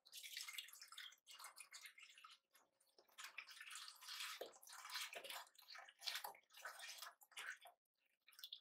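Milk pouring from a carton into a stainless steel pot: a splashing stream that surges unevenly and stops near the end.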